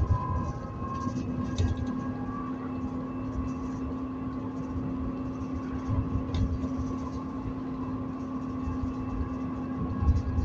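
ADL Enviro400 double-decker bus heard from inside on the move: the engine and driveline drone with a steady whine holding one pitch, over road rumble, with a few brief knocks and rattles from the body.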